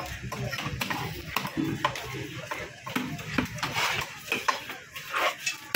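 A cleaver chopping a spotted grouper on a wooden log block: a run of sharp, irregular knocks, several a second, as the blade strikes through the fish into the wood.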